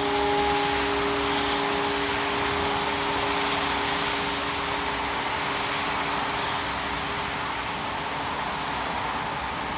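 Orthodox church bells left ringing after the last strikes, with no new strikes. The higher bell tones die away within the first second or two, while the deep hum of the larger bells decays slowly. A steady rushing noise runs underneath.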